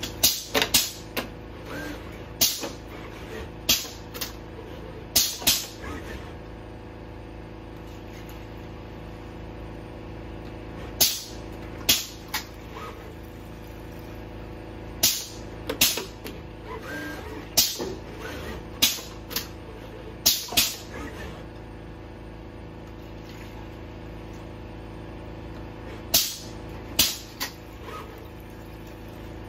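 Robot arm running with a steady electric hum, broken by irregular sharp clicks and knocks, some in quick pairs, as its gripper picks up and sets down cups and lids.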